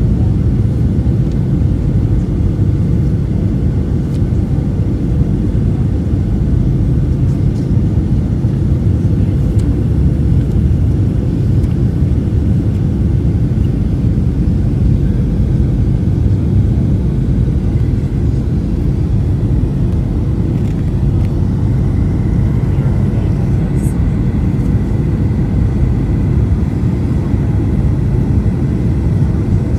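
Airliner cabin noise on approach to landing, heard from a window seat beside the wing: a steady, loud low rumble of the jet engines and rushing air through the cabin wall.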